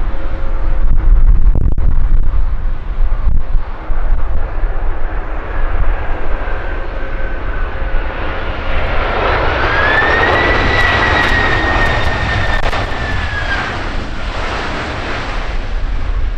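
Airbus Beluga A300-600ST's twin General Electric CF6 turbofans on the landing roll, over a constant low rumble. About nine seconds in, the jet noise swells and a whine rises in pitch, holds, then falls away near fourteen seconds.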